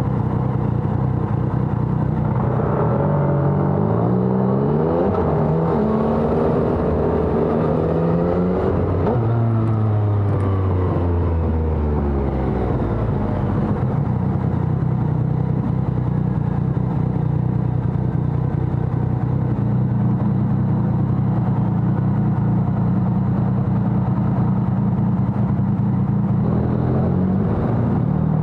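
Yamaha XSR900's 847 cc inline-three engine through a LeoVince Evo One full exhaust, under way: the revs climb a few seconds in, fall away around ten seconds in, hold a steady cruising note, then pick up again near the end.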